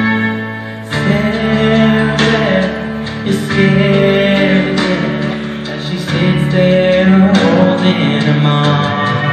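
A man singing into a microphone over a guitar-led backing track, holding long notes.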